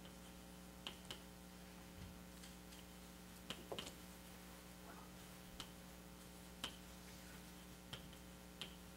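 Near silence with a steady electrical mains hum and a few faint, irregular clicks and ticks scattered through it.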